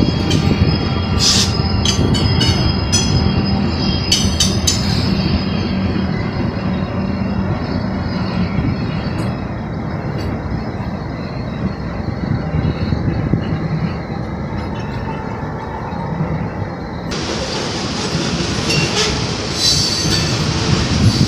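Norfolk Southern freight train passing close by: a trailing diesel locomotive goes by at the start, then a long string of autorack and tank cars, their wheels rumbling steadily over the rails with sharp clanks now and then, most in the first few seconds and near the end.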